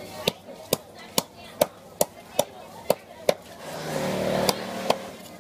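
Cleaver chopping through fish onto a wooden chopping board: sharp strikes about twice a second, eight in a row, then two more near the end. A steady hum joins in about four seconds in.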